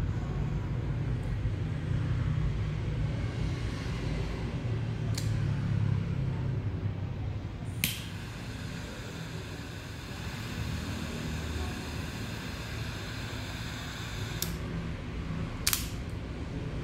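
Triple-jet butane torch lighter: a sharp ignition click, then the jet flame hisses steadily for about six seconds and cuts off with a click. A second sharp click about a second later as the lid snaps shut. A low steady rumble underlies it all.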